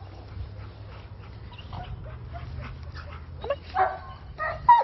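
Dog barking, with two loud barks near the end and fainter yelps before them.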